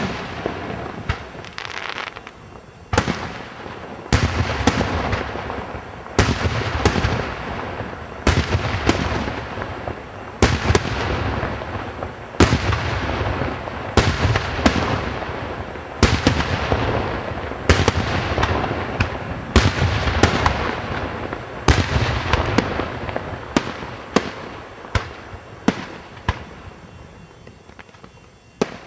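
Aerial firework shells bursting in quick succession during a display, about one or two sharp bangs a second, each trailing away. The bangs thin out and grow quieter near the end.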